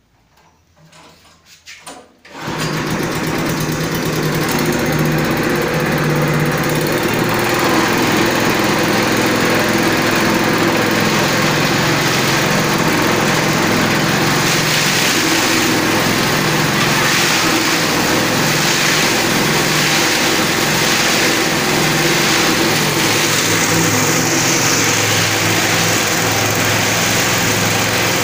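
A 6.5 hp petrol engine on a crop chopper-grinder catches about two seconds in after a few faint starting sounds, then runs steadily at speed. From about halfway, dry stalks are fed in and chopped, adding a hissing, rattling chopping noise over the engine.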